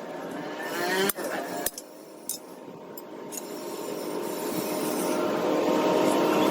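A few sharp clinks of iron pieces, then a rough scraping on the metal that builds up steadily louder through the second half.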